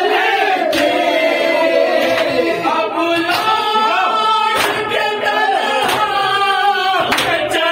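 A group of men chanting together in a mourning chant, with sharp slaps of hands striking bare chests (matam) roughly once a second.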